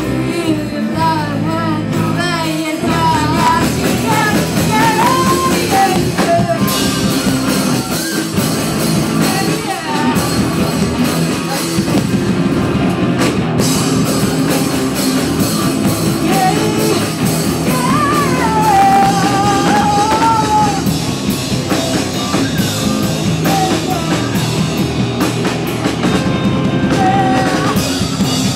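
Live rock band playing loudly: electric guitars, bass and drum kit with a singer's voice over them. A wavering melodic line rises above the band in the opening seconds and again past the middle.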